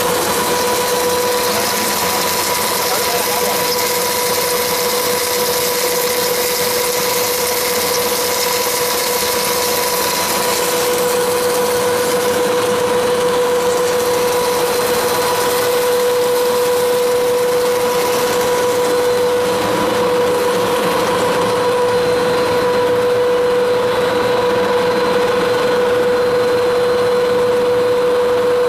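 Twin-screw food extruder of a textured soy protein line running: a steady mechanical hum with a constant whine held at one pitch throughout.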